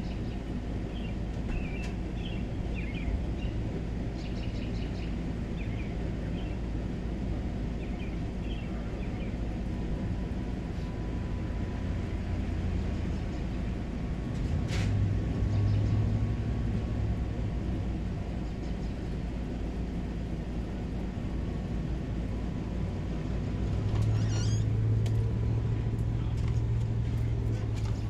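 Outdoor ambience: birds chirping in the first several seconds over a constant low rumble, which swells twice, about halfway and again near the end, with a single sharp click about halfway.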